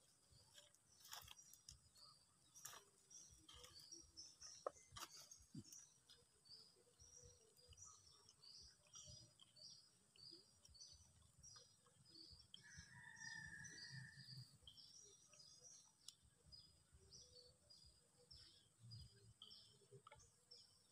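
Faint bird chirping: short high chirps repeating about two to three times a second, over quiet outdoor background. A few sharp knocks in the first five seconds, the loudest about four and a half seconds in.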